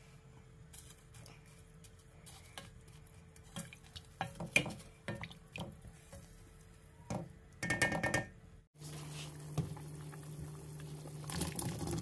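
Wooden spoon stirring chicken soup in a stainless steel stockpot: irregular knocks and scrapes against the pot, with a busier stretch of stirring about two-thirds of the way in.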